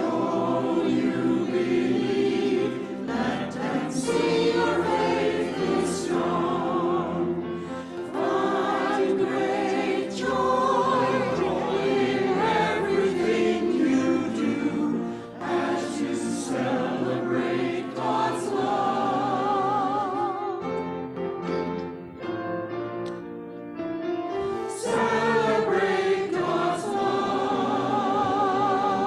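Mixed church choir singing an anthem in harmony, with vibrato on the held notes and a softer passage about two-thirds of the way through.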